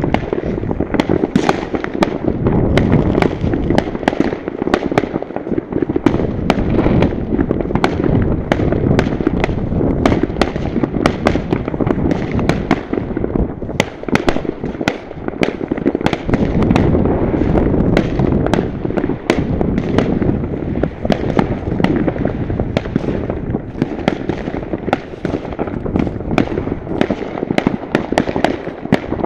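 Many fireworks going off at once across a town at New Year: a continuous rumble of distant bangs with dense, sharp crackling and popping layered on top, several cracks a second throughout.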